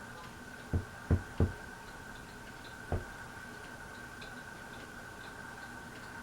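Hampton Bay Roanoke ceiling fan running with a steady high hum, with four short low knocks: three close together about a second in and one more near three seconds.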